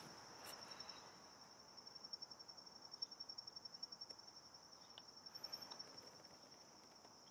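Crickets chirping: a faint, steady, high-pitched pulsing trill.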